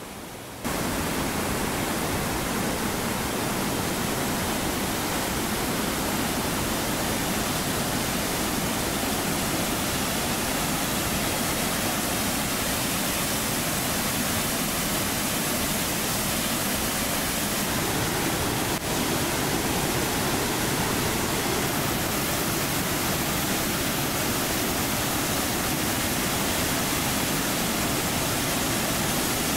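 Johnston Canyon's Upper Falls pouring into its plunge pool: a steady, loud rush of falling water that comes in suddenly about half a second in.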